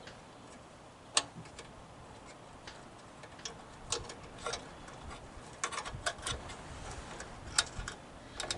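Scattered light clicks and taps of small metal parts being handled and fitted during reassembly of a spring-loaded mower part.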